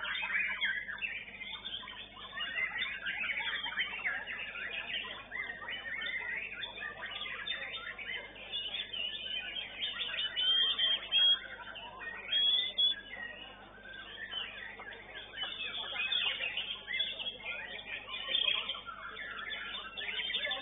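White-rumped shamas (murai batu) singing in competition: a dense, unbroken tangle of short, quick song phrases, with a few louder phrases about halfway through. The sound is thin, with no high end, as heard through a CCTV camera's microphone.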